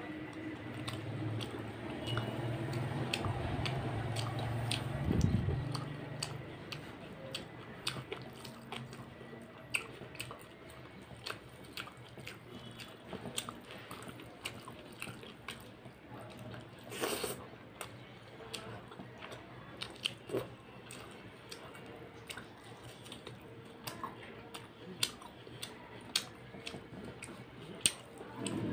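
A person eating rice and mutton curry with their hand, chewing with wet, squishy mouth sounds and occasional crunchy bites, with many small clicks and smacks.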